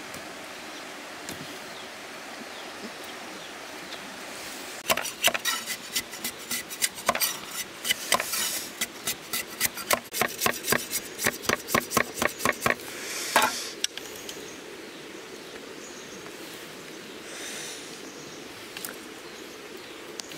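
Machete blade chopping and splitting bamboo strips: a quick run of sharp woody knocks, about three a second, from about five seconds in to about thirteen seconds in, then only a steady background hiss.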